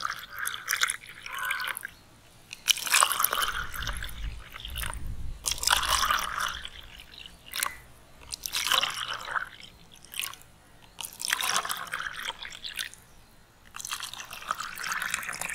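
Orange drink mix poured from a container into plastic cups in a series of short pours, one about every two to three seconds.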